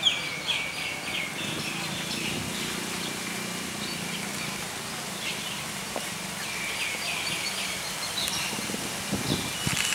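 Birds chirping in the trees in quick runs of short, falling notes, one run at the start and another about two-thirds of the way through, over a steady outdoor background hum.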